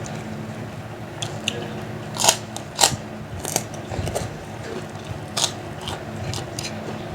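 A person biting and chewing crunchy kerupuk crackers and fried nuggets, with a series of sharp, irregular crunches over a steady low hum.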